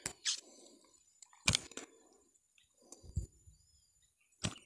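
About four brief rustles and taps with quiet between: a hooked oscar fish flapping against dry grass as it dangles on the line.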